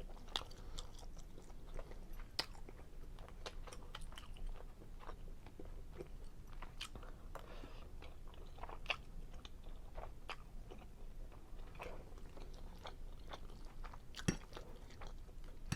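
Close-up chewing of a mouthful of creamy seafood linguine Alfredo, with scattered soft mouth smacks and small clicks and one sharper click near the end.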